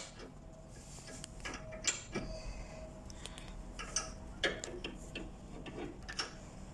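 A small steel spanner clinking and ticking against a nut and the cast-iron frame of a treadle sewing machine stand as it is fitted on, in light, irregular metallic clicks.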